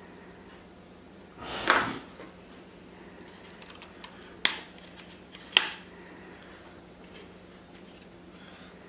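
Handling noise from a paracord-wrapped boat paddle being turned over: a short scrape, then two sharp knocks about a second apart.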